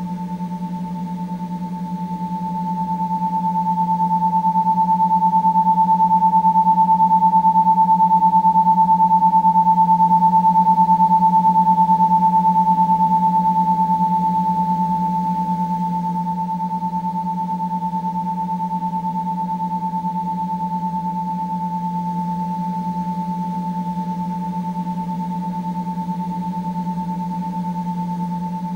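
Two steady electronic tones held together, a clear high one over a low hum, swelling louder for several seconds in the middle before settling back.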